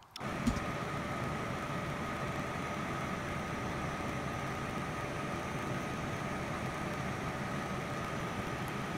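Heat gun switching on right at the start and blowing steadily: an even rush of fan and hot air with a faint thin whine, heating old solder on a circuit board to free a chip.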